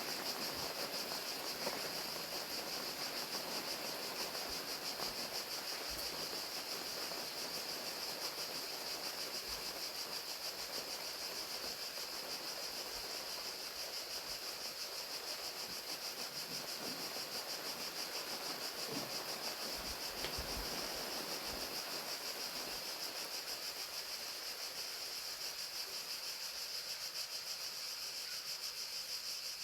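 Crickets chirping in a steady, high-pitched drone over the even hiss of falling rain.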